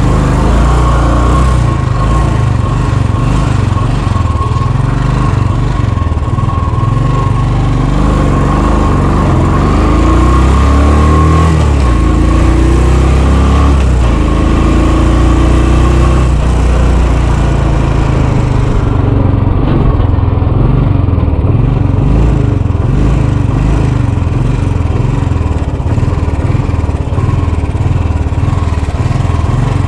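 Motorcycle engine running as the bike pulls away and rides along a road. It revs up in several rising sweeps through the gears about eight to sixteen seconds in, then runs on steadily.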